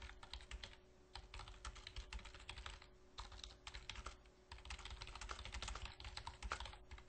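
Faint typing on a computer keyboard: quick runs of keystroke clicks with a couple of short pauses between bursts.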